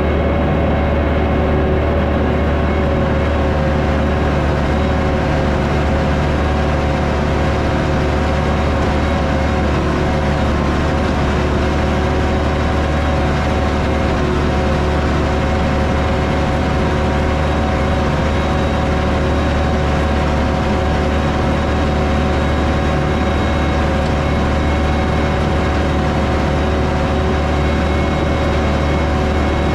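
The six-cylinder Perkins 6.354 diesel of a 1964 Chamberlain Countryman 6 tractor runs steadily under load, pulling an air seeder with its tines in the ground. It is heard from the driver's seat in the cab, with a deep, even drone.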